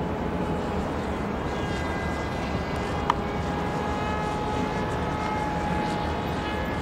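Art-Tech Coota RC model plane's motor and propeller giving a steady whine as it flies, over a low rumbling haze, with one sharp click about three seconds in.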